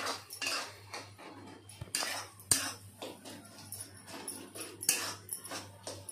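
Metal spoon scraping and clinking against a steel kadai in irregular strokes as a thick onion-tomato masala is stirred and fried until the oil separates, over a low steady hum. The loudest strikes come about two and a half and five seconds in.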